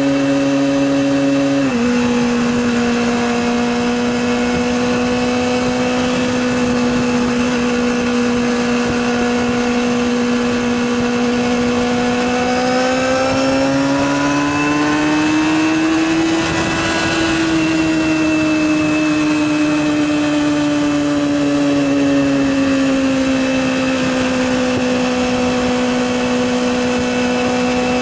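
Yamaha YZF-R6 inline-four engine running under way at a steady high pitch; the note steps down slightly about two seconds in, then rises smoothly to a peak a little past halfway and falls back again.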